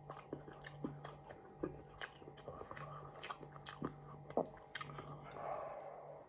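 Close-up chewing of crispy battered fish: wet chewing with frequent crisp crunches of the batter, over a low steady hum. A short soft rush of noise comes near the end.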